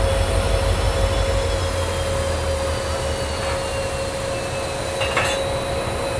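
WDP4D diesel locomotive running close by: its EMD two-stroke V16 engine gives a steady low rumble with a steady hum, and faint high whines slowly fall in pitch. A short clank comes about five seconds in.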